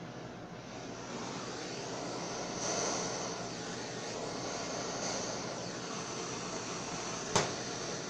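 Steady hiss of kitchen machinery, like an oven or ventilation fan, swelling slightly twice in the middle. A single sharp knock comes near the end.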